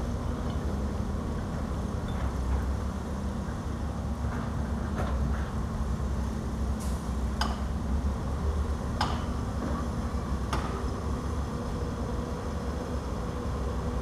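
Heavy diesel construction machinery (excavator and dump truck engines) running with a steady low rumble. Several sharp metallic clanks stand out through the middle.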